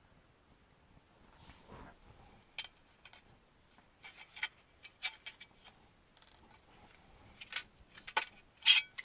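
Small metal screws and chassis plates of a model kit clinking and tapping as they are handled and set down: a scatter of sharp clicks that grows louder and more frequent near the end.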